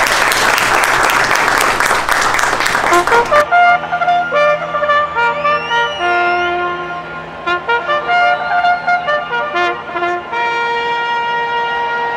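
Applause for about the first three and a half seconds, cut off abruptly by brass fanfare music with trumpets playing held notes.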